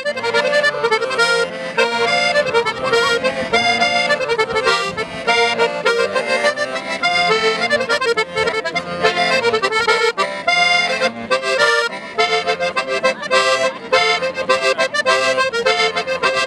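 Diatonic button accordion (Sardinian organetto) playing a fast, lively ballo sardo dance tune with a steady quick pulse.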